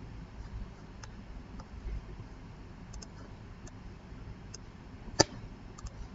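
Sparse clicks of a computer mouse, a handful of faint ones and one sharper, louder click about five seconds in, over a faint low room hum.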